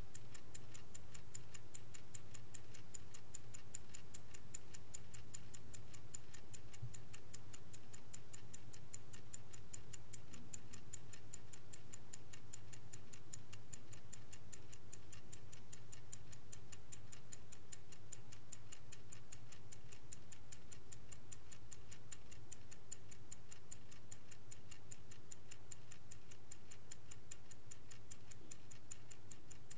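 Vintage Swiss-made Angelus clock ticking in a steady, rapid, even rhythm, with a faint low hum beneath.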